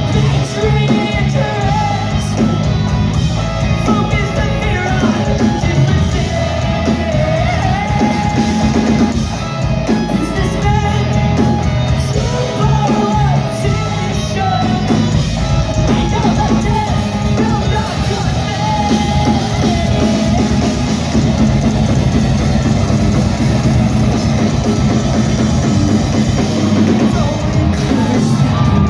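Live post-hardcore rock band playing loudly: drum kit, amplified guitars and bass under a sung lead vocal, heard from within the audience.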